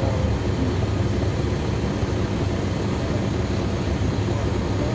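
Caterpillar C13 diesel engine of a NABI 40-foot transit bus running steadily, heard from the rear seats inside the bus.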